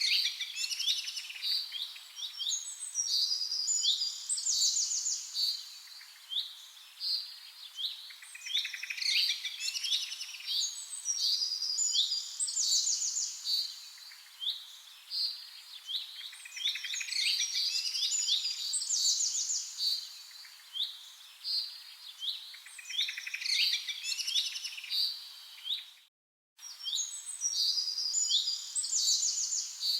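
Songbirds chirping and singing in overlapping bursts of quick, high notes and trills. The sound cuts out briefly near the end.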